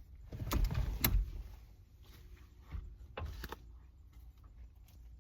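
Metal tools clanking and clattering while being handled, most likely sockets being rummaged through, with a group of sharp clanks from about half a second to a second in and another a little after three seconds in.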